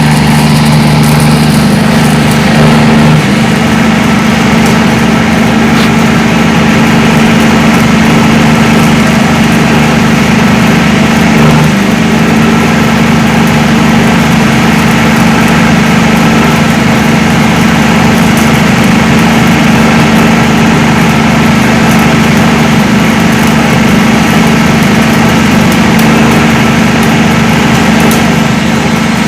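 Engine running steadily at a constant speed, loud and close, with a strong low hum.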